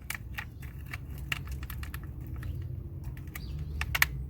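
Scattered light clicks and clinks of tools and engine parts being handled during under-hood work, the loudest click about four seconds in, over a low steady background hum.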